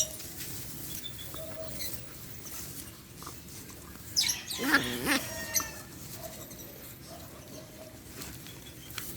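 A puppy and a Belgian Malinois playing: scuffling and pattering paws, with one short whining yelp from a dog about halfway through.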